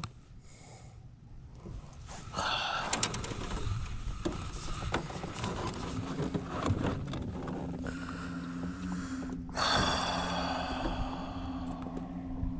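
Wind rushing over the microphone and water noise on a small open boat, with a few sharp clicks about three seconds in and a steady low hum joining about halfway through.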